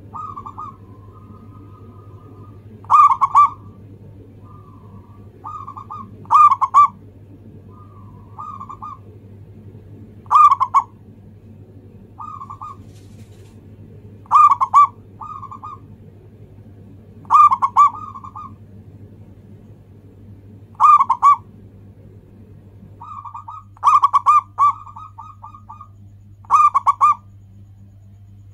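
Zebra dove (perkutut) singing its cooing song: a loud phrase of quick, rolling coos repeated every three to four seconds, with softer coos in between. A steady low hum runs underneath, and a low background rumble drops away about 23 seconds in.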